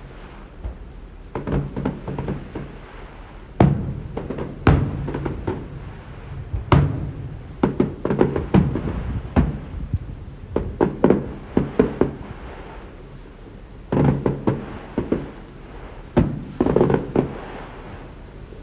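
Fireworks going off: many sharp bangs in irregular clusters, each with a short rumbling echo, and a few stronger single bangs between about three and seven seconds in.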